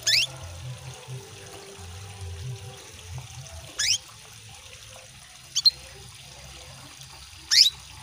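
Female canary calling to a male: four short, high chirps a few seconds apart, each sweeping down in pitch. They sound over a steady trickle of running water.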